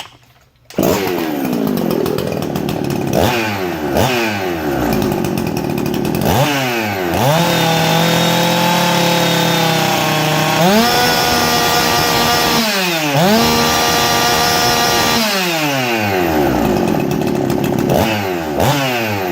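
Husqvarna 359 two-stroke chainsaw, with a ported, decked cylinder, changed timing and a modified exhaust, running with no chain on its short bar. It starts about a second in, blips up and down a few times, is held at full throttle twice in the middle with a brief dip between, then goes back to quick blips near the end.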